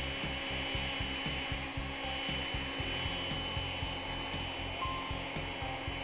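Makita CL108FD 12V CXT cordless stick vacuum running steadily, a high motor whine over rushing air as its floor nozzle sucks up spilled grains from a tile floor.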